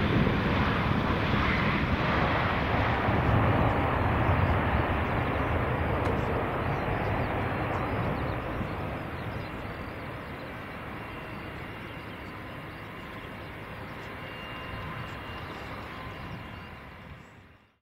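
Jet engine noise from a Boeing 757-200's two Rolls-Royce RB211-535E4 turbofans as the airliner moves along the runway. It is loudest in the first few seconds and fades gradually after that, with a faint whine showing through later, then drops away abruptly at the very end.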